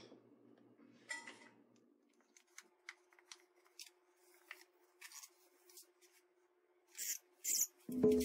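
Heat-shrink tubing being forced down a fiberglass shovel handle, a tight fit. Faint scattered rubbing and light clicks of the sleeve against the handle and hands, with a couple of louder rubs near the end.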